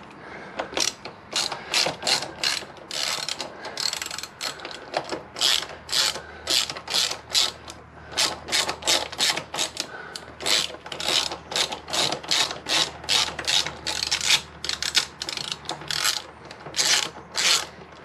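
Socket ratchet clicking in repeated quick bursts as it is swung back and forth, undoing the mounting bolts of a motorcycle's rear brake caliper.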